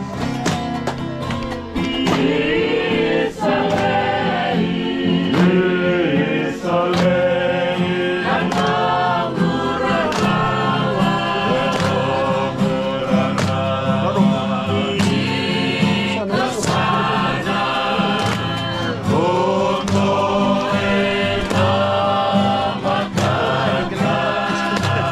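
Background music: choral gospel-style singing over a steady bass accompaniment.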